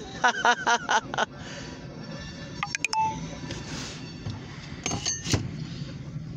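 Inside a car: a steady low hum, a short high-pitched voice in the first second, then a few sharp clicks with brief chime-like tones about three and five seconds in.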